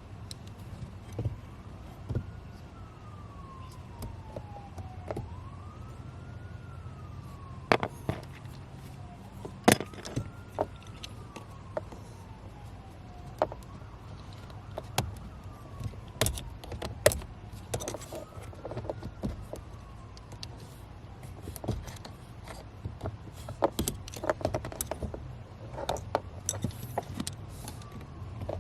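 A faint emergency-vehicle siren wailing in the background, its pitch sweeping up and slowly down again about every four seconds. Over it come sharp clicks and knocks of hand work on the car's heater core hose fitting and its plastic clamp.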